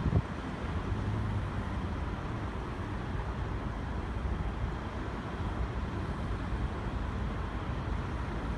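Steady outdoor noise of wind on the microphone and idling road traffic, with a short knock just after the start.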